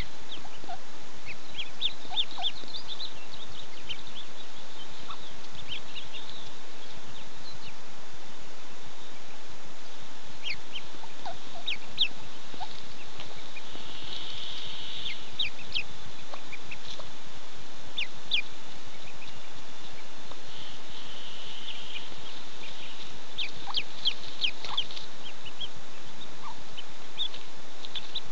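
Mallard ducklings peeping at the nest: many short, high peeps in scattered clusters, over a steady background hiss.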